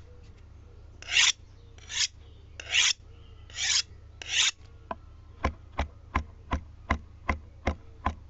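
Five rasping scrapes in a row, then a steady run of sharp clicks, about two and a half a second, over a faint low hum.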